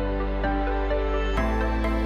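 Background music with sustained chords, changing to a new chord about one and a half seconds in.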